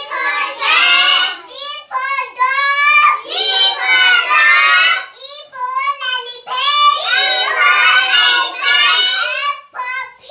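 A young child's loud, high sing-song voice chanting a lesson aloud in short phrases with brief pauses, as in rote classroom recitation.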